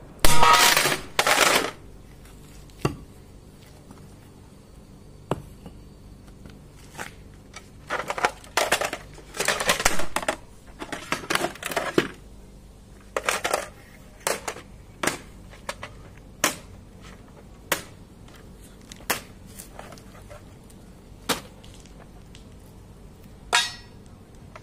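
A sledgehammer blow hitting a stack of computer DVD drives, with a loud crash and clatter of their sheet-metal casings about a quarter of a second in. After it come scattered clacks and short rattling clusters as the metal drives are picked up and set down.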